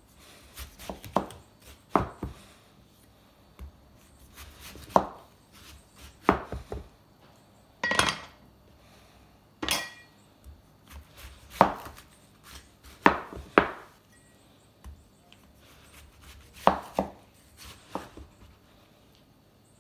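Large cleaver chopping down through watermelon rind into a plastic cutting board: about a dozen separate chops at irregular intervals of a second or two, some in quick pairs. Two chops near the middle ring briefly.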